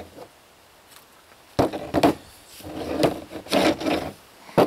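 PVC pipe and a PVC coupling handled on a plastic counter: a sharp knock about a second and a half in, then plastic rubbing and clunking against plastic, and another sharp knock near the end.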